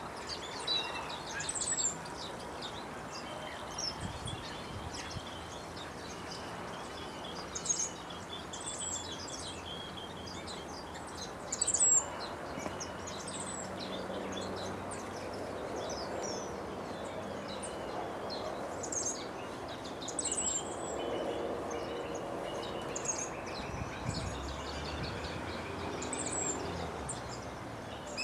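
Small aviary finches calling: many short, high chirps scattered throughout, with some fainter trills, over steady outdoor background noise.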